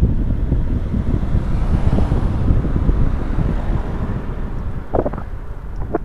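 Wind buffeting the microphone of a Niceboy Vega X Pro action camera whose wind-noise filter is off, a dense low rumble from riding speed. There are two short knocks near the end.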